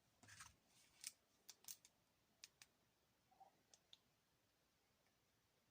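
Faint, scattered clicks of a Sony Ericsson K508i's keypad buttons being pressed, about nine in the first four seconds, then stopping.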